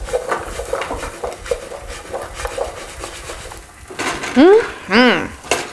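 Diced potatoes and sausage being stirred and tossed in a hot nonstick sauté pan: a spatula scrapes and clatters against the pan over a frying sizzle. About four seconds in, a person makes a few short wordless vocal sounds, which are the loudest part.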